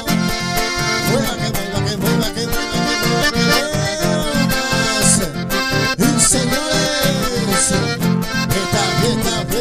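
Two accordions and an acoustic guitar playing an instrumental passage live through a PA, with a steady beat.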